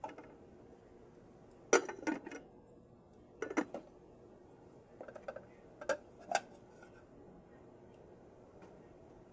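Spoon and fork clinking and scraping against a plate during a meal, in several short clusters of sharp clicks over the first seven seconds.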